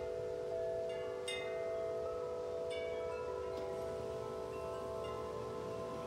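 Several large tuned tubular wind chimes ringing in the breeze, their long tones overlapping. A few fresh strikes come about a second in and again around the middle.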